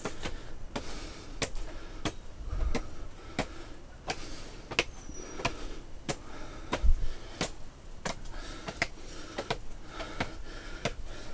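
A hiker's footsteps climbing a rocky mountain trail: irregular sharp taps and scuffs about once or twice a second, with a couple of low thumps.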